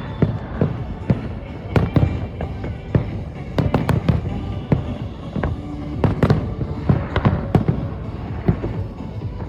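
Fireworks going off: a rapid, irregular run of sharp bangs and crackles, several a second, each with a short echo.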